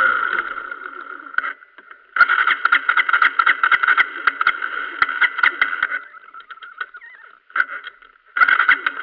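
Motorcycle electric starter cranking the engine in bursts with pauses between: a long burst from about two to six seconds, a short one, and another starting near the end. The engine does not catch.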